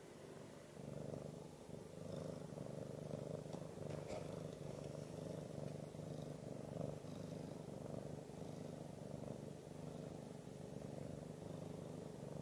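Orange tabby cat purring steadily, a low continuous rumble that grows louder about a second in.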